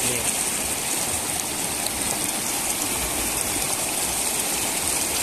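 Floodwater flowing, a steady, even noise of running water.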